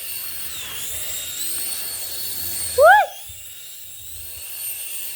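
A small toy helicopter's electric motor and rotor whining at a high pitch, the whine dipping and rising again as it flies. About three seconds in comes a short high cry from a person, rising then falling, the loudest sound.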